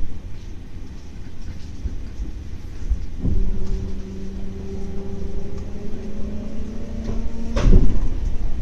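Electric train running slowly through a tunnel with a low rumble. A knock about three seconds in is followed by a steady hum that lasts about four seconds, and a louder thud comes near the end.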